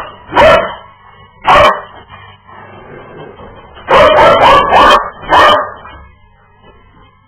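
A dog barking in short, loud bursts: three single barks in the first two seconds, then a quick run of about four barks around four seconds in and one more just after.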